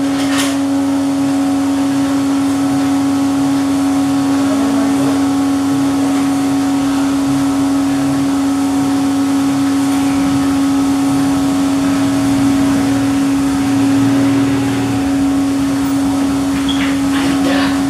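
Drum coffee roaster running with a steady motor and fan hum while the cooling tray's stirring arm turns through freshly roasted beans. A few light clicks come near the start and near the end.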